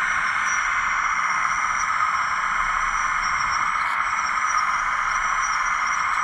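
Radio-controlled hydraulic model machine's electric pump motor running steadily: an even whirring hiss with a thin, slightly wavering high whine above it.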